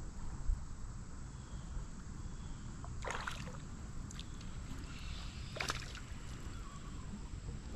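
Hooked smallmouth bass splashing at the surface twice, about three and five and a half seconds in, over a steady low rumble of water and wind.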